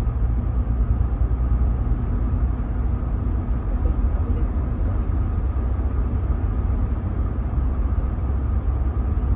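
Steady low engine and road-noise rumble heard inside a bus cruising at speed on a motorway.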